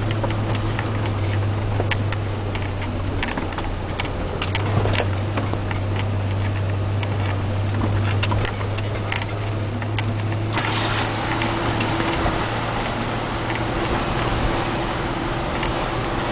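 Off-road vehicle's engine running steadily, heard from inside the cabin, with water and mud splashing and spattering against the body as it drives through a flooded track. The splashing hiss gets suddenly louder about ten seconds in.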